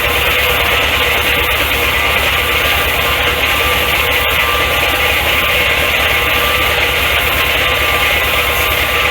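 An engine running steadily with a fast, even beat, turning a part of a Corley sawmill. Over it is a steady hiss of fine, worn sandpaper held against the spinning part to polish rust off it.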